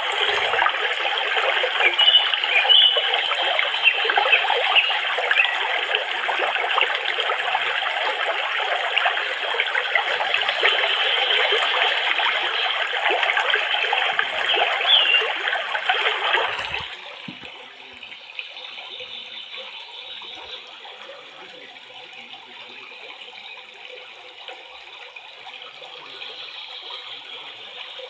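Steady rush of flowing water, like a stream or small waterfall running into a pool. A little over halfway through it cuts off abruptly, leaving a much quieter steady hum.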